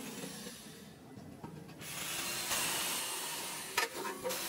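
Handheld electric drill boring into the steel mounting plate of an air-compressor tank. The bit's cutting hiss is faint at first and settles into a steady hiss from about halfway in.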